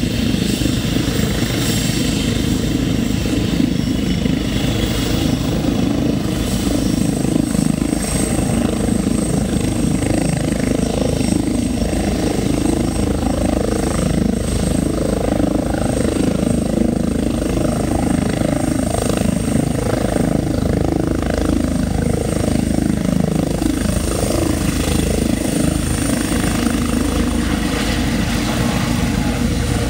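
Air-rescue helicopter running on the ground at lift-off power: a steady, dense rotor and turbine noise with a thin high whine that rises slightly. In the later part it lifts off into a low hover.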